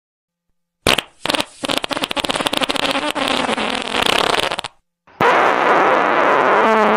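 Fart sound effects. About a second in comes a short burst, then a long, rapidly sputtering fart lasting about three seconds. After a brief gap, a second, steadier fart starts and takes on a wavering pitch near the end.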